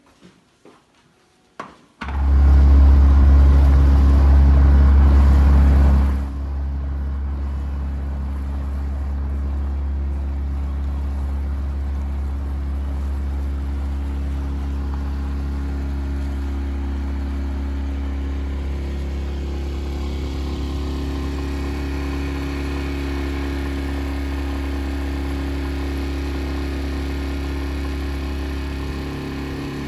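A small boat's engine running steadily while underway, a constant low drone. It starts suddenly about two seconds in, is loudest for the first four seconds, then settles to an even level.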